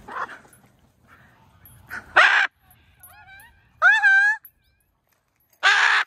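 Large dog vocalizing in short spurts: a harsh bark about two seconds in and another near the end, with high, arching whining yelps between.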